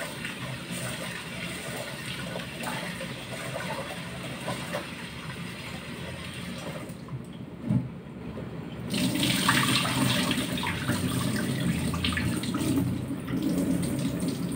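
Tap water running into a metal pot at a kitchen sink as glutinous rice is washed. About eight seconds in the flow drops and the pot knocks once, then the water runs louder again.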